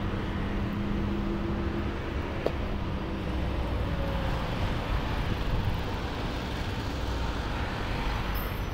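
City street traffic noise: a steady rumble of passing vehicles, with a low hum in the first couple of seconds and a single sharp click about two and a half seconds in.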